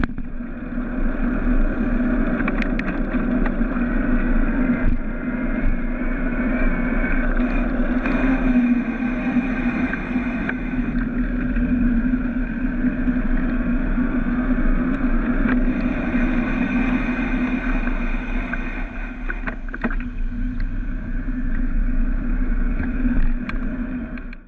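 Steady wind rush on the microphone and tyre noise from an e-bike riding along an asphalt road, eased slightly near the end as the bike slows.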